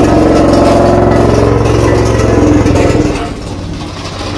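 Road roller's diesel engine running loudly, dropping off in level about three seconds in.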